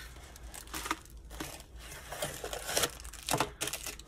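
Tissue paper crinkling and rustling as a tissue-wrapped roll is slid out of a cardboard mailing tube and handled, in irregular strokes with a few louder rustles about three seconds in.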